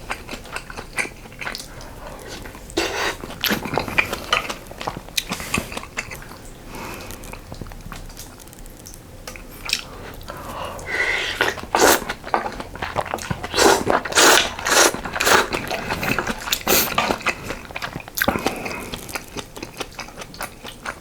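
Close-miked chewing of budae jjigae stew with ramen noodles and rice: irregular wet clicks and smacks, busier and louder in the middle.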